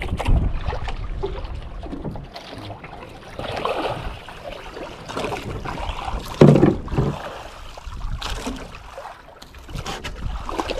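Water sloshing and splashing beside a small fishing boat, with wind on the microphone and irregular knocks and rustles, and one louder thump about six and a half seconds in.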